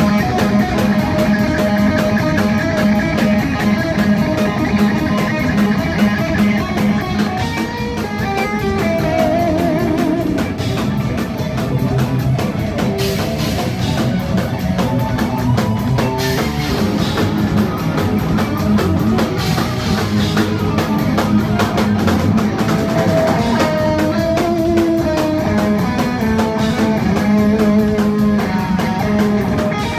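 Heavy metal band playing live: distorted electric guitars over a drum kit, loud and continuous.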